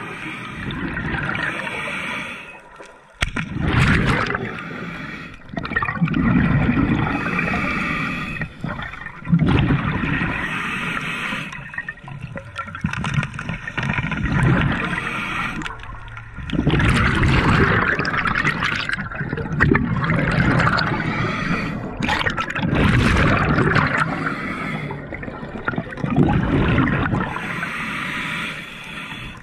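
Water gurgling and bubbling, heard underwater through the camera housing, in irregular surges every few seconds.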